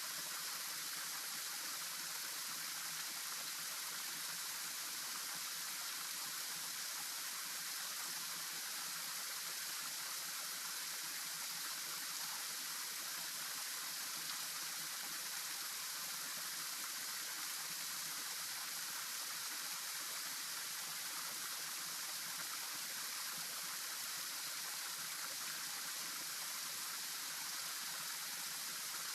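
Steady rushing hiss of a stream's flowing water, even and unbroken throughout.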